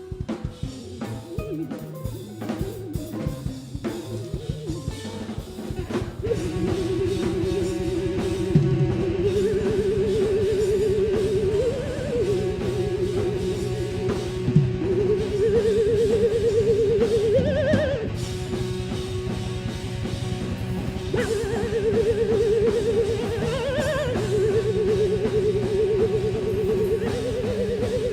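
Heavy metal band playing live without vocals: a drum kit, with rapid bass drum strokes, under a held, wavering electric guitar lead that starts about six seconds in and swoops upward every few seconds.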